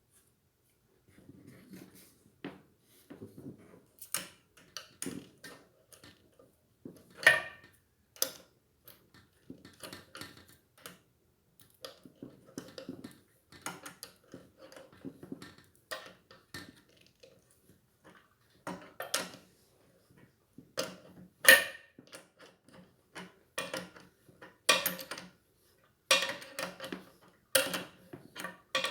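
Scattered clicks, taps and light metal clinks of ceiling fan parts being handled during assembly, with a couple of sharper knocks about a third of the way in and again later.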